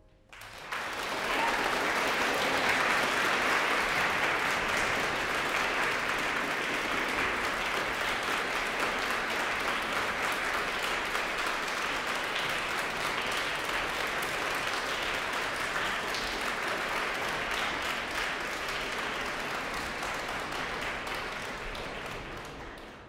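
Audience applauding: the clapping starts abruptly about half a second in, holds steady, and fades out near the end.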